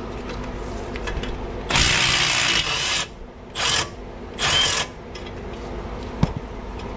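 Milwaukee cordless 3/8-inch right-angle impact wrench running in three bursts, one long and two short, to break loose a brake caliper bolt held with Loctite. A single click follows near the end.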